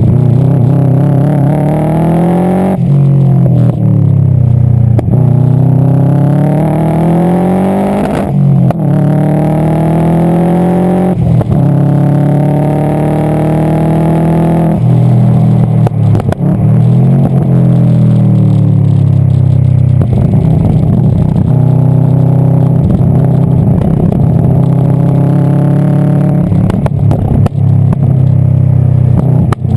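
Turbocharged flat-four of a Subaru Impreza STI GC8 under hard acceleration on track, the engine note climbing in each gear and dropping back at each shift, with sharp crackles off throttle in the second half. The car is running with an exhaust leak and down on power.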